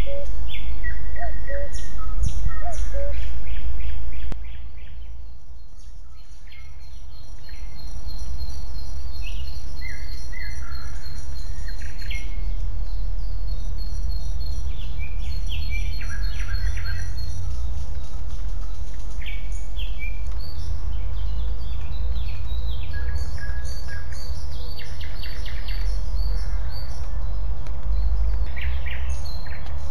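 Several songbirds chirping and trilling over a steady low rumble of wind on the microphone. The sound drops suddenly about four seconds in and swells back a few seconds later.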